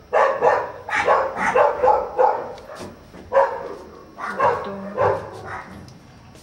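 Dog barking repeatedly in quick bursts, several barks in a row, then again after a short pause, dying away near the end.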